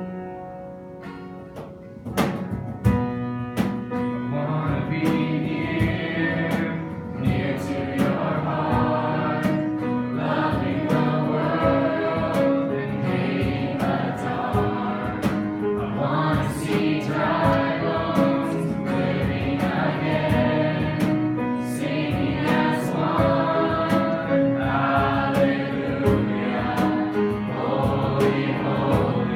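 Live worship music: a band with drums and several voices singing a song. It is quieter for the first two seconds, then the full band comes in.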